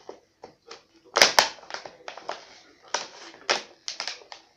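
Stiff plastic packaging crackling and crinkling in irregular snaps as it is pulled open by hand, the loudest crackles a little over a second in.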